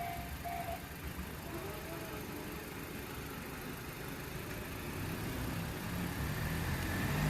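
Railway level-crossing warning bell dinging about twice a second, stopping about a second in; then road traffic, with a vehicle engine growing louder near the end.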